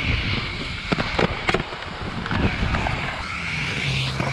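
Inline skate wheels rolling over a concrete skatepark bowl: a steady rolling hiss with a few sharp clacks about a second in. A low steady hum comes in near the end.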